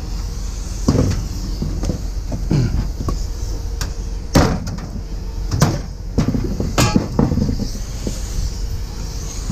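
A handful of sharp metal knocks and clanks as scrap is handled and yanked at, over a steady low hum.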